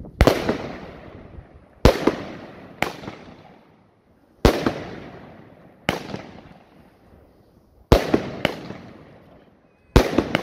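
A Blackboxx 'Sauron' 13-shot consumer fireworks battery firing shot after shot of titanium-gold comets. There are about eight sharp bangs, one every one to two seconds, each followed by a fading hiss.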